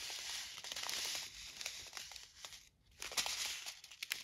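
Small clear plastic bags of diamond-painting drills crinkling as they are handled, with light crackles and clicks; the crinkling stops briefly just before the three-second mark, then resumes.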